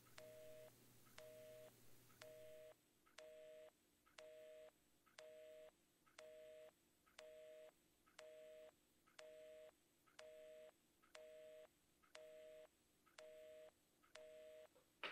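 Faint telephone busy signal heard from a handset: a two-note tone beeping on and off about once a second, each beep starting with a small click. It means the line has been cut off at the other end.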